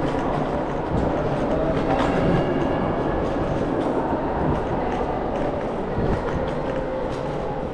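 Scooter rolling through a tunnel: a steady rumble of its wheels on the roadway, with a faint whine and a few sharp knocks, about one and two seconds in and again near six seconds.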